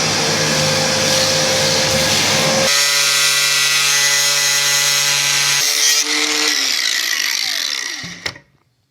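Electric power tool motor running at speed, its tone shifting twice as the load changes, then switched off and winding down with a falling whine.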